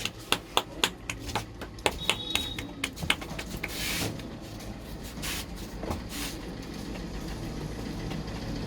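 A run of sharp, quick hand slaps and taps, about four a second, from a percussive head massage, dying away about three seconds in. After that a low engine hum from a vehicle on the street grows slowly louder.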